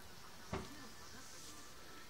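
Faint outdoor background with one short, sharp click about half a second in.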